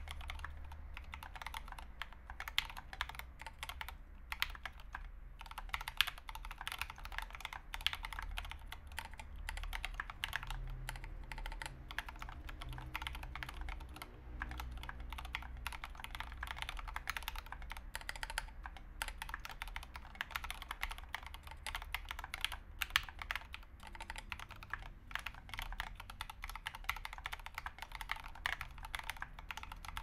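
Fast, continuous typing on an Idobao ID80 mechanical keyboard with Turquoise Tealio 65g linear switches lubed with Krytox 205g0 and MAXKEY SA-profile ABS keycaps: a steady stream of overlapping keystrokes.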